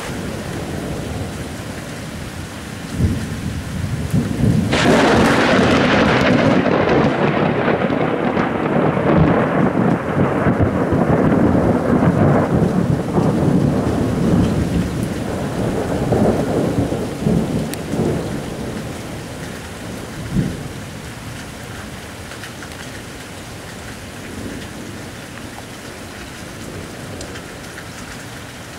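Thunder in a heavy rainstorm: a sharp crack a few seconds in, then a long rolling peal that swells and slowly dies away over about a dozen seconds, with one more short crack later. Steady rain falls throughout.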